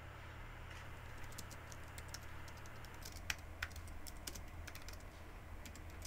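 Typing on a slim, low-profile computer keyboard: quick, irregular key clicks that start about a second in, with two louder keystrokes a little past halfway, over a steady low room hum.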